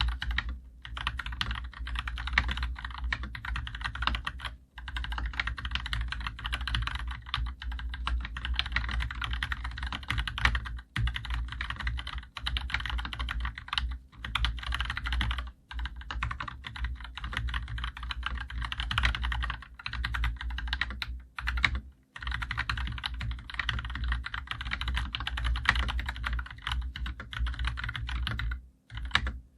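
Fast, continuous typing on a COX CK108 BT mechanical keyboard with Gateron Yellow linear switches and PBT doubleshot keycaps. The rapid keystrokes run in long runs broken by several brief pauses.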